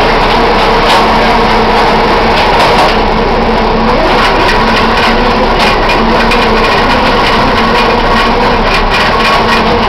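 Fishing boat's engine and deck machinery running steadily and loud, with a constant drone and frequent light clicks and knocks.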